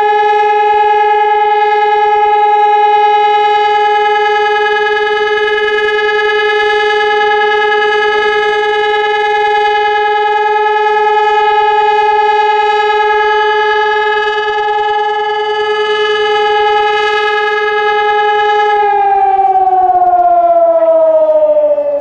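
Civil defence siren sounding the all-clear (Entwarnung) signal, one long steady tone. Near the end its pitch begins to fall as the siren winds down.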